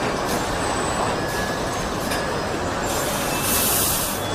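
Car assembly line machinery running: a steady mechanical rumble and clatter with faint short squeaks, and a brighter hiss near the end.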